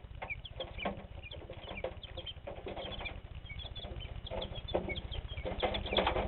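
Young chicks, about six days old, peeping in a brooder: many short, high cheeps, with scattered rustles and flutters.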